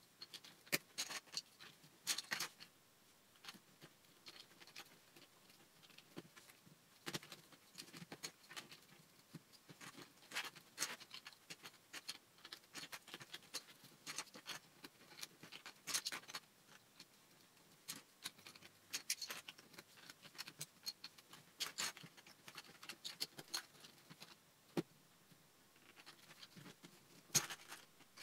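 Lego bricks clicking and clattering as they are picked up and pressed onto a base: an irregular string of small, sharp plastic clicks.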